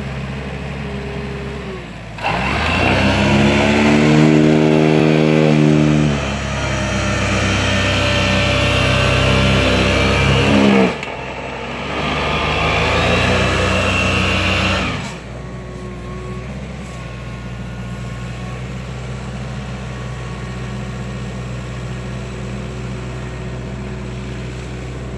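Tractor diesel engine running steadily, then revving hard and labouring under load about two seconds in, easing around eleven seconds and surging again briefly. This is the load of a rear-mounted tree-lifting blade tearing an old pear tree's roots out of the ground. It then settles back to a steady idle.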